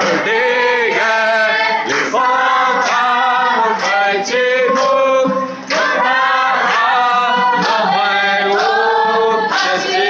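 A congregation of men and women singing a worship song together in Lahu, with a man strumming an acoustic guitar.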